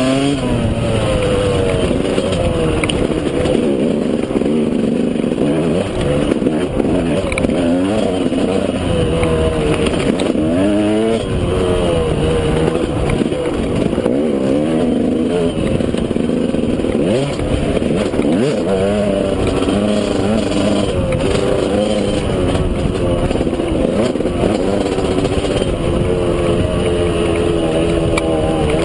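KTM 200 EXC's single-cylinder two-stroke engine running under way, its revs rising and falling again and again as the throttle is opened and closed.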